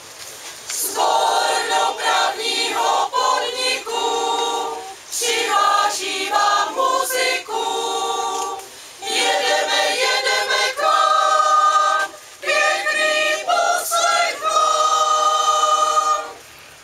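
Mixed choir of men's and women's voices singing a cappella, in several phrases with short breaths between them; the singing stops shortly before the end.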